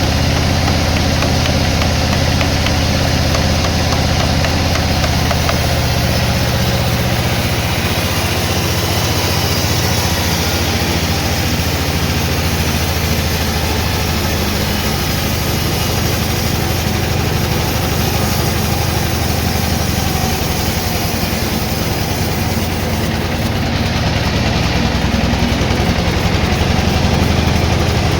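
Sawmill machinery engine running steadily, a low even drone with a constant mechanical rattle.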